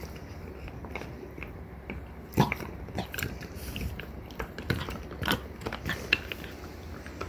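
Two French bulldogs gnawing on deer antlers: irregular hard crunches and scrapes of teeth on antler, the sharpest one about two and a half seconds in.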